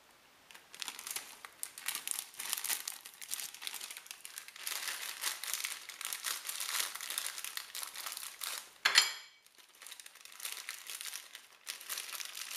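Foil snack pouch crinkling and crackling as it is handled and tipped out into a dish. About nine seconds in there is a short, sharper and louder crackle.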